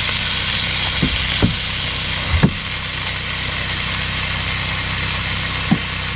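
An engine running steadily at a constant speed, with a few short thumps over it, the loudest about two and a half seconds in.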